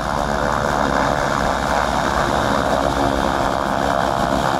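A small propeller plane's engine running steadily as the plane arrives, a continuous drone with a steady pitch.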